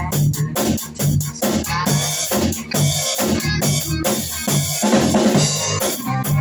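1970s hard rock recording: a drum kit keeps a steady beat of kick and snare hits over a bass line, with sustained pitched instrument lines coming in about two seconds in.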